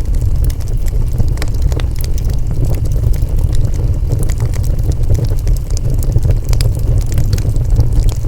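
Wood fire burning: a steady low rumble of flames with frequent, irregular sharp crackles and pops from the burning wood.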